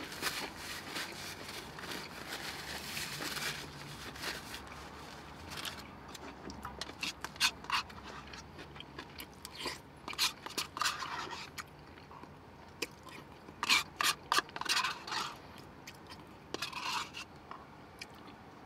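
Paper sandwich wrapper crumpled and rustled for the first few seconds, then a plastic spoon scraping in a cup of chili, with close-up mouth smacking and chewing as spoonfuls are eaten: a string of sharp clicks and smacks.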